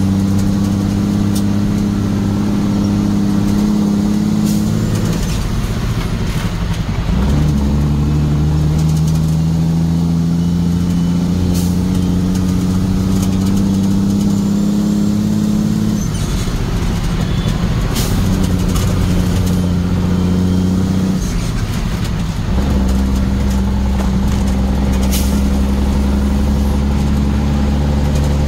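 Motor vehicle engine running while driving. Its note shifts in pitch a few times as the revs change.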